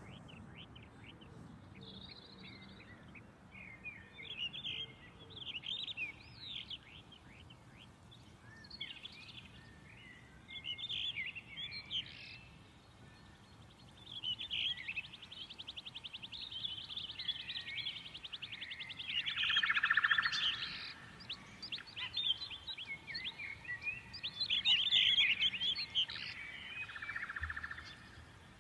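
Songbirds chirping and singing in short bursts of quick notes, with a long, fast trill through the middle.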